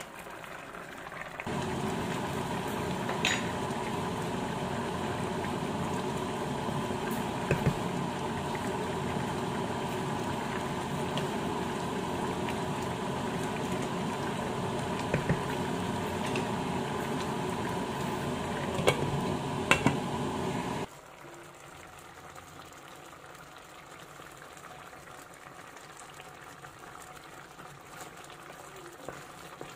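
Sauce with pork ribs boiling hard in a wide stainless steel pan, bubbling steadily, with a few knocks of a wooden spoon against the pan as it is stirred. About twenty seconds in, the bubbling becomes much quieter.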